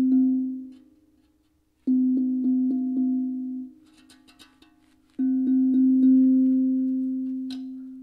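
Hapi Drum Slim steel tongue drum: one low note tapped quickly, about three times a second, in bursts that ring out and fade between them. The tongue is being retuned by sliding its magnets, and a few faint clicks come in the gap between bursts.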